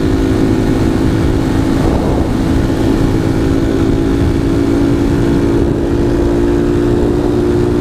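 A Honda Titan 150's single-cylinder engine running at a steady cruising speed through a Gemoto aftermarket sport exhaust, its note holding an even pitch. Heavy wind buffets the microphone throughout.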